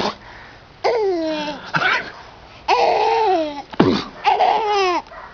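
A baby laughing hysterically in long, high squeals, about three of them, each falling in pitch. There is a short, sharp burst of sound just under four seconds in.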